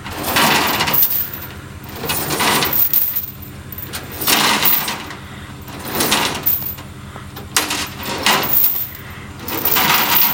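Pickup truck engine running steadily while the truck sits stuck in deep mud, with loud rattling bursts about every two seconds.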